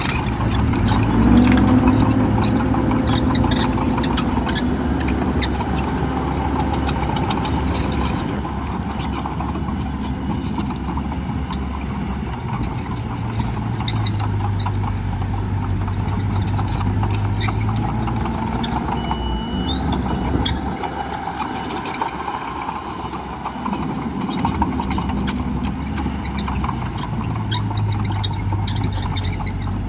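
Heavy diesel engines of earthmoving machines (dump truck and bulldozer) running continuously, the engine pitch shifting up and down several times as they work under changing load.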